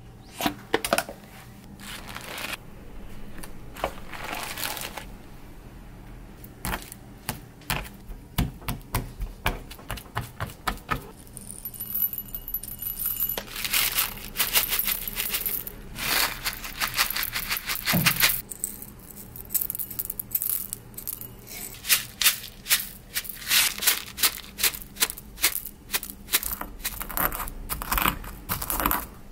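Peppercorns poured into a ceramic mortar, rattling and clicking against the bowl in a dense patter. Then a ceramic pestle crushes black and Sichuan peppercorns with salt in a run of sharp, repeated cracking strokes.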